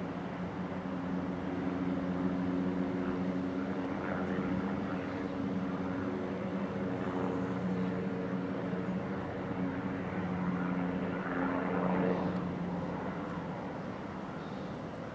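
Cessna 208B Grand Caravan's single PT6A turboprop and propeller droning past on approach to land: a steady low hum that swells to its loudest near the end, then begins to fade.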